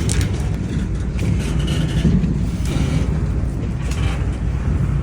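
Steady low rumble of a train, with a few faint scuffs and knocks over it.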